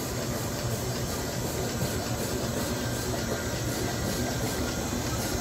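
30-ton steam crane ADM 1091/30 moving slowly along the track with its wagon: steam hissing from it over a steady low rumble.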